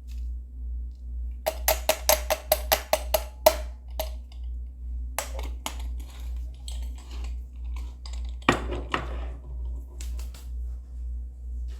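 A quick run of about a dozen sharp clicks and taps, then a few scattered knocks, over a steady low pulsing hum.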